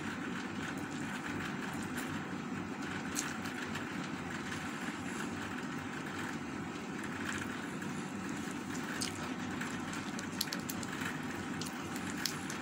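Close-up eating sounds: chewing and scattered soft mouth and finger clicks as roast chicken and rice are eaten by hand, over a steady background hum.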